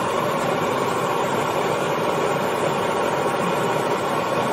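A steady, unchanging mechanical roar with a faint hum, no separate knocks or strikes.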